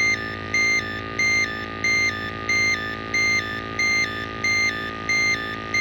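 Flue gas analyser alarm beeping over and over, about one and a half two-note beeps a second: the warning of a dangerously high carbon monoxide reading from an Ideal Logic gas boiler at minimum rate. Under the beeps the boiler runs with a steady hum and a constant high whistle-like tone.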